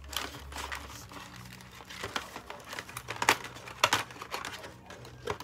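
Doll box packaging being handled as a doll is worked free of its fastenings: continuous crinkling and rustling with irregular clicks, and two sharper snaps a little past the middle.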